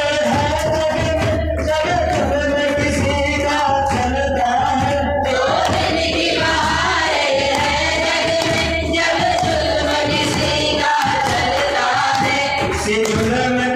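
A song with singing voices over a steady low musical accompaniment, running without a break.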